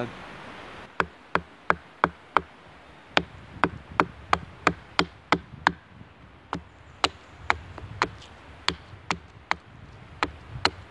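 Hultafors Classic Trekking 500 g hatchet hewing a wooden spoon blank resting on a stump. Short sharp chopping strikes come about two to three a second, starting about a second in, with a couple of brief pauses.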